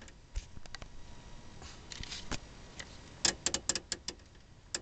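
Irregular sharp clicks and crackles, with a quick run of several about three seconds in, over a faint hiss.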